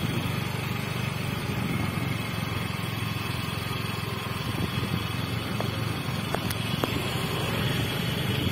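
Motor scooter running at a steady cruise while riding along, with a steady rush of road and wind noise.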